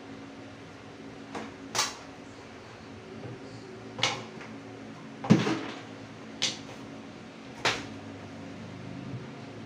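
Handling knocks as a trim router's metal body is set into and knocked against a plywood router-lifter jig on a wooden workbench: about six short, sharp clacks, the loudest with a dull thud about five seconds in, over a steady low hum.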